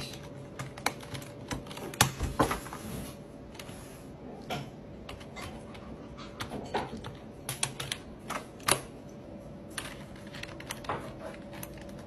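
Keys of a backlit computer keyboard clicking irregularly as an African grey parrot pecks and pries at the keycaps with its beak, over a faint steady hum.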